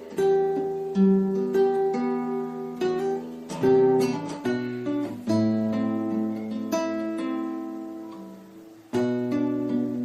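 Calm acoustic guitar music: fingerpicked notes, with a chord left to ring and fade away for several seconds past the middle before the picking starts again near the end.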